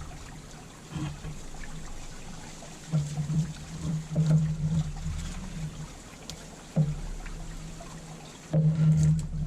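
Honeybees buzzing around an open top-bar hive, a low hum that swells and fades as bees fly close, loudest about three seconds in and again near the end, with a few light clicks from the frames being handled.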